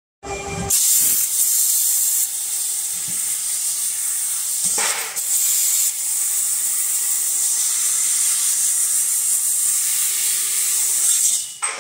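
Loud, steady hiss of compressed-air assist gas blasting from the nozzle of a 1500 W fiber laser cutter's head as it cuts 2.7 mm carbon steel. A short thump comes just before the hiss starts, and the hiss cuts off near the end.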